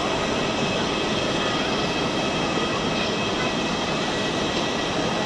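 Jet engines of a Boeing 787-9 airliner at takeoff thrust as it climbs out, a steady rushing jet noise with a faint high whine.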